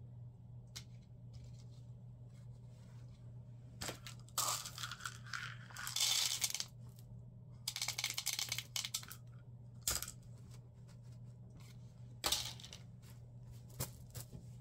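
Whole dried corn kernels poured through a plastic funnel into a cotton flannel channel, rattling in several short spurts, with fabric being handled in between.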